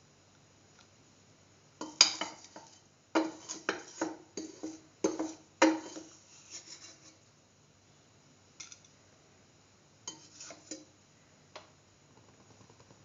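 Metal kitchen utensils and a steel pan clattering and clinking: a busy run of sharp knocks and scrapes for several seconds, then a few scattered clinks.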